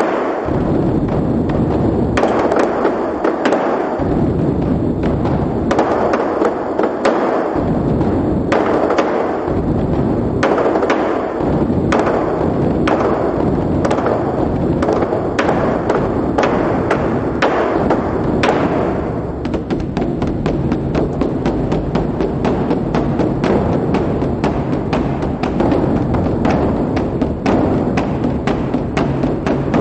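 Large Chinese drums beaten together in a drum performance: a loud, continuous stream of heavy strokes in repeated swells. About two-thirds of the way in, the strokes become a faster, denser roll.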